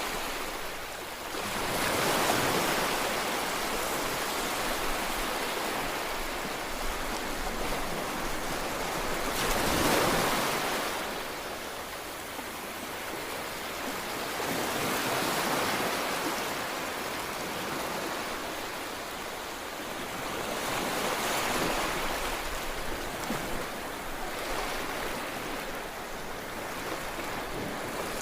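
Ocean waves breaking and washing in, rising and falling in slow surges every several seconds.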